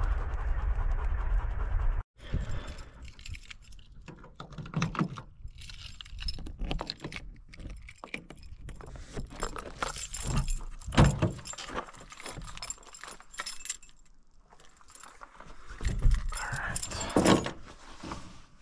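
A steady rushing noise that cuts off about two seconds in, then keys jangling on a ring in a pickup truck's tailgate lock as the camper-shell hatch and tailgate are unlatched and opened, with clicks, rattles and a few louder knocks of the latches and gate.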